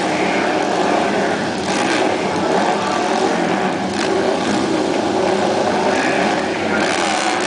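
Several dirt-track racing motorcycles running together at the start line, their engines revving.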